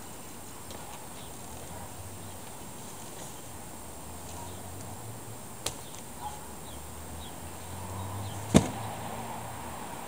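Steady outdoor background noise with a light click a little past halfway and a single sharp knock near the end, the loudest sound, as something is handled at a car being loaded.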